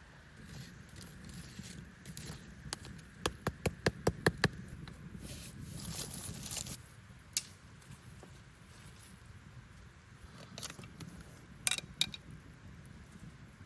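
A quick run of sharp clicks or knocks, about four a second, with rustling in between and a few single sharp knocks later on.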